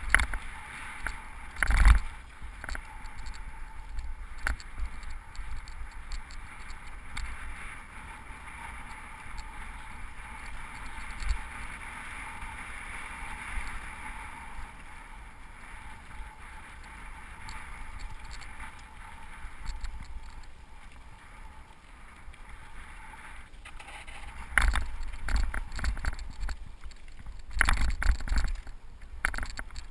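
Cyclocross bike rolling fast down a dry dirt singletrack: a steady rolling rush of the tyres on the loose surface, with the bike and camera mount knocking and rattling over bumps. There is a hard jolt about two seconds in and a dense run of rattles and knocks near the end.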